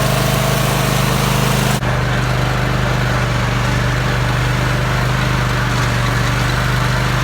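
Riding lawn mower engine running steadily while it tows a load, with a brief break just under two seconds in.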